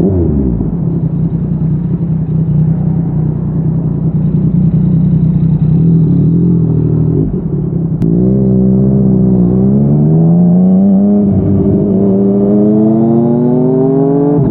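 Yamaha MT-09's inline-three engine through a Yoshimura R55 slip-on exhaust, riding on the road. The revs fall at the start and hold steady for several seconds. From about eight seconds in the bike accelerates, the note rising and then dropping briefly at each upshift.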